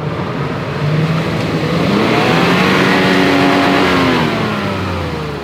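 A four-wheel drive's engine revving hard, its pitch climbing over the first two seconds, holding, then easing back down near the end.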